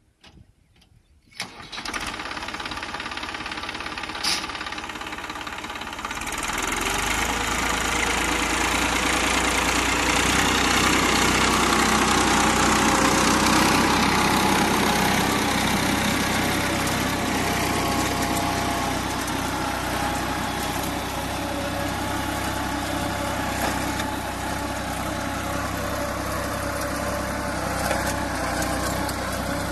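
Tractor diesel engine starting up about a second and a half in, then running steadily. It grows louder from about six seconds in as the tractor works, pulling a plough.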